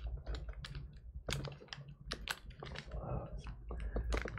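Crinkling and crackling of a sealed trading-card pack wrapper being pried and torn open by hand, a rapid, irregular run of sharp crackles. The seal is glued tight and hard to open.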